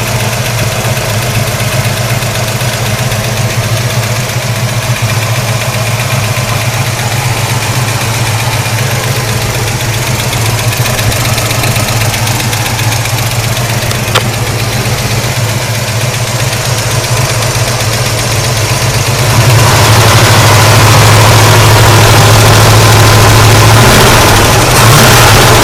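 1965 Pontiac GTO's 389 V8 idling steadily with a rapid ticking, a lifter noise. It grows louder about two-thirds of the way through.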